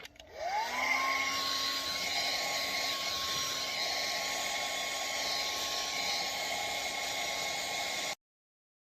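Handheld hair dryer switched on, its motor whining up to speed within about a second, then blowing steadily. It is warming the glue of old decals so they peel off cleanly. It cuts off suddenly near the end.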